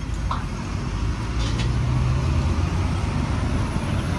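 Road traffic alongside the pavement: a steady low rumble of passing vehicles, with an engine's low drone standing out for about a second in the middle.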